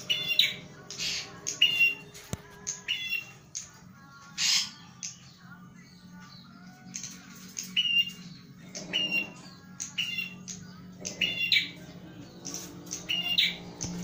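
A caged prinia (prenjak) calling repeatedly in sharp, squawky notes, in irregular runs with a short lull partway through: territorial calling of the kind that glass is used to provoke in training. A steady low hum runs underneath.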